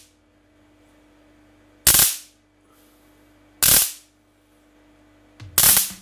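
Three short, sudden bursts of a high-voltage spark from a Chinese high-voltage module, arcing between electrodes above a candle flame, about two seconds apart. With the electrodes raised higher, the discharge passes through the flame without putting it out.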